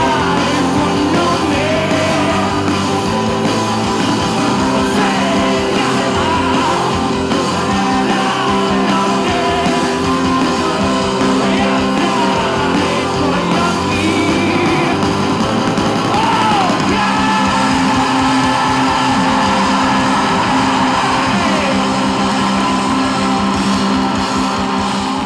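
Live rock band playing a song, with a lead singer over electric guitar, bass and drums.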